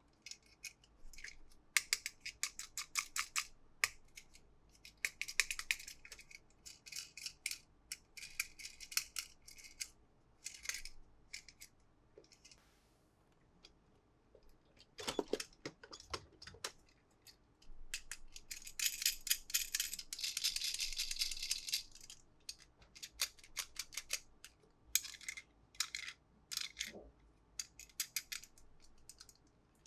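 Close-up handling of toy cars and their packaging: bursts of rapid clicks, crinkling and scraping, with a longer spell of crinkling about 19 to 22 seconds in.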